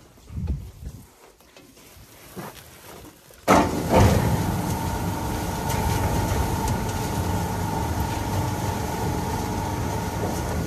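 A motor-driven farm machine starts suddenly about three and a half seconds in and then runs steadily with a constant whine over a low hum, after a few faint knocks.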